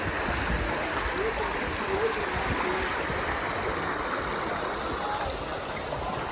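Steady rush of a stream's flowing water, an even noise without breaks.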